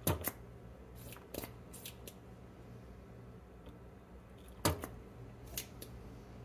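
Small hand tools clicking and tapping during desoldering work on a circuit board: a handful of short sharp clicks, the two loudest about a tenth of a second in and near the end, over a low steady hum.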